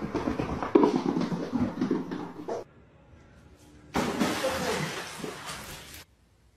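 Indistinct voices, then about four seconds in a loud splash and churning water as a cat falls into a swimming pool and thrashes toward the edge. The splashing stops about two seconds later.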